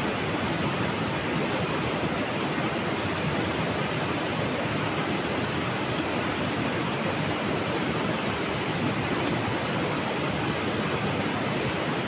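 Steady rushing of a shallow rocky river flowing over stones, an even, unbroken wash of water noise.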